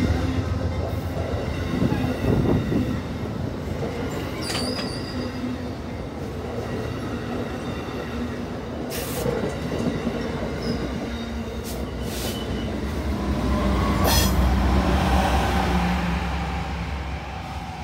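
Amtrak passenger train passing close by: the stainless-steel Amfleet coaches roll past with the wheels clicking and briefly squealing on the rails. Near the end the GE Genesis diesel locomotive pushing at the rear goes by, and the low rumble swells before easing off.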